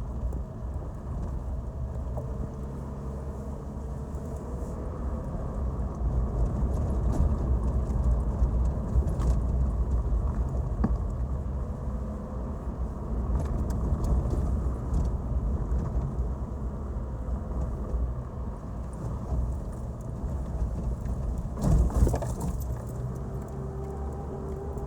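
Off-road vehicle driving on a rough dirt forest road: a steady low engine and tyre rumble with scattered small knocks and rattles, and one louder jolt near the end.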